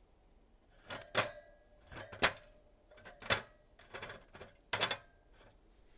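Bread rolls being handled and turned on the metal wire rack of a flat electric toaster: a handful of sharp clicks and clinks about a second apart, several with a brief metallic ring.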